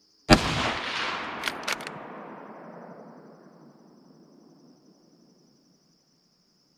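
A single .308 rifle shot from a Franchi Momentum All-Terrain Elite bolt-action rifle, its echo rolling away over about four seconds. A few sharp clicks follow a second or so after the shot, and crickets chirp steadily before and after.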